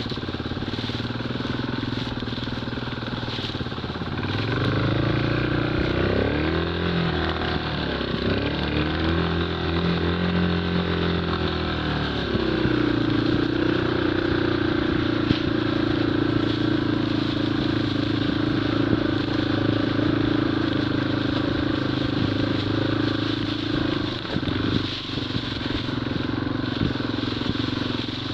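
Off-road motorcycle engine ridden along a snow-covered track. From about four seconds in the revs rise and fall several times, then from about twelve seconds they hold a steady pitch, dropping briefly about twenty-four seconds in.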